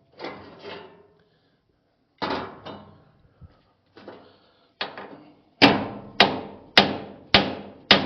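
Steel hammer striking a seized steel pivot pin on a concrete pump's slewing cylinder mount, each blow a metallic clank with a short ring. A few lighter, uneven taps come first, then from about halfway a steady run of harder blows, a little under two a second. The pin is stuck fast and not moving.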